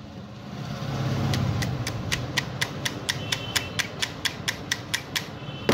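Steel pliers tapping a fridge compressor's gudgeon-pin lock into the piston, metal on metal: a fast, even run of light ticks, about four a second, starting a little over a second in, with a louder knock at the very end. A low steady hum lies underneath in the first half.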